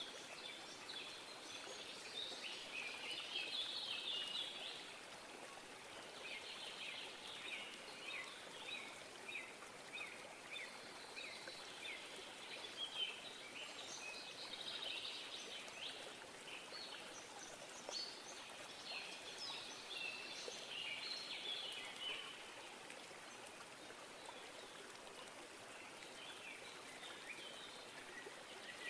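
Faint, high chirping and trilling from small animals, coming in spells that swell and fade, over a soft steady hiss.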